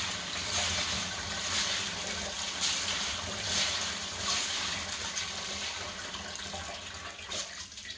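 Kitchen tap running water onto wheat grains in a plastic colander while a hand stirs the grains to rinse them, a steady splashing with small swells as the grains are turned.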